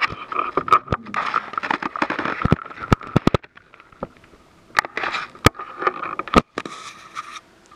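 Sheets of paper rustling and being shuffled close to a pulpit microphone, with sharp clicks and knocks scattered through as they are handled on the lectern.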